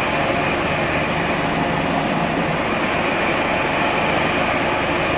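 Portable scrap-car baler's power unit running steadily, a continuous machine hum and rush.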